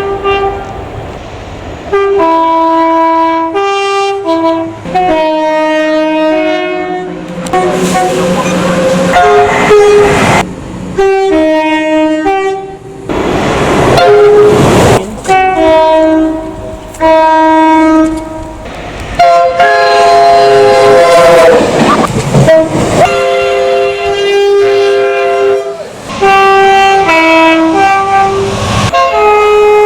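A rapid succession of train horns, each blast a chord of several notes at once, some long and some short, changing from one horn to the next. The rumble and clatter of passing trains comes through between some of the blasts.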